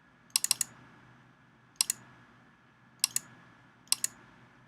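Sharp clicks at a computer: a quick run of three or four about half a second in, then single or paired clicks roughly once a second.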